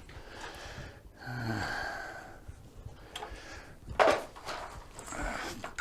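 A man's breathy grunts and exhales while working, with a sudden sharp noise about four seconds in.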